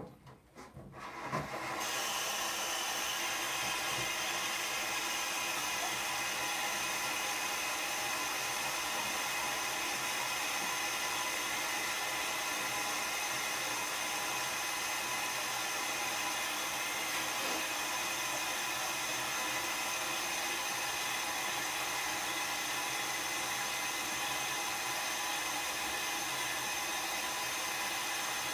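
Water running from a sink tap into plastic water jugs, filling them. The tap comes on about two seconds in, and the flow then runs steadily.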